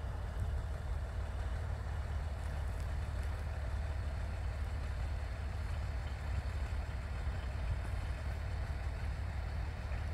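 Ex-DB class 628 diesel multiple unit running with a steady low rumble as it pulls up and stands.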